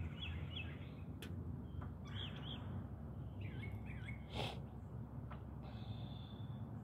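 Small birds chirping in short, faint calls several times, with a held high note near the end, over a low steady background hum. A brief soft puff of noise about four seconds in.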